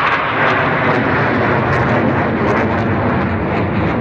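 Engine noise from Blue Angels jets climbing in formation, a loud, steady rushing noise without breaks.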